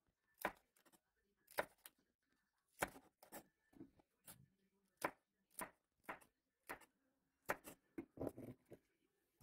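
Chef's knife slicing green chili peppers on a plastic cutting board: short, sharp knocks of the blade through the pepper onto the board at an uneven pace, about one every half second, with a quick cluster near the end.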